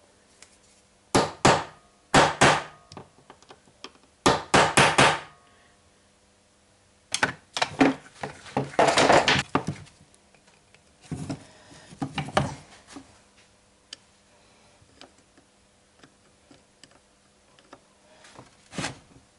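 Hammer tapping a tool seated in a stuck screw on a Hitachi angle grinder's gear housing to jar the screw loose. The taps come as sharp knocks in several short bursts, with pauses between them.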